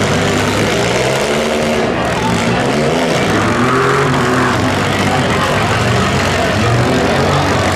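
Several compact demolition derby cars' engines running loudly at once, revving up and down as they drive around the arena.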